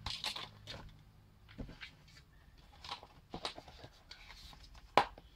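A few scattered light clicks and taps, with one sharper click near the end: handling noise from working glue onto a loudspeaker cone's surround against its plastic frame.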